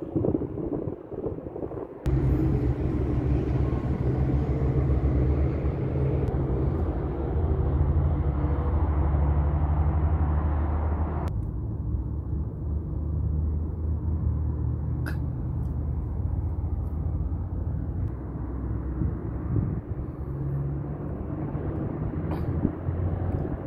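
A machine running with a steady low hum, from about two seconds in, with a few faint clicks over it.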